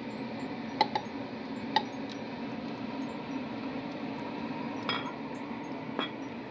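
Several sharp clinks of kitchen utensils against dishware as the finished soup is handled, over a steady low hum.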